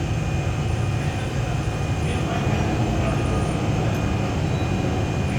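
Lathe running steadily: a continuous low hum with a thin, steady high whine over it.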